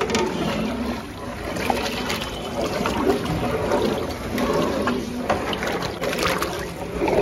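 Water splashing and trickling.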